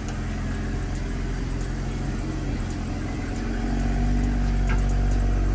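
Engine of a white BMW X4 SUV running at low speed as it is driven slowly out of a garage, a loud engine that grows a little louder about three and a half seconds in.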